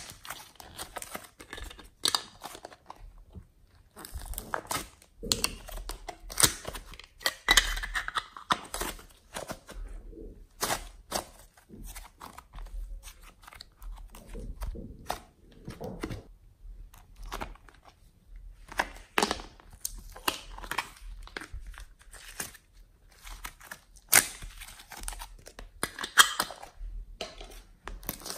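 Slime and modelling clay being handled: thin plastic molds clicking and crackling as the clay is pressed out of them, and slime being stretched and squished. An uneven run of sharp clicks and crackles with a few louder snaps, one right at the start.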